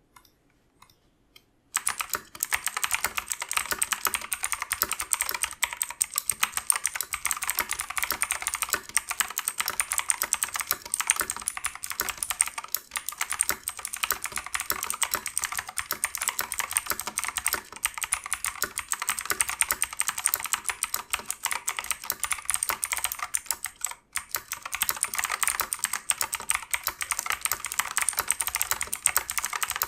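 Fast, continuous typing on a Razer BlackWidow X Tournament Edition Chroma mechanical keyboard with clicky Razer Green switches: a dense stream of sharp key clicks. It starts about two seconds in after a few faint clicks, and pauses briefly once near the end.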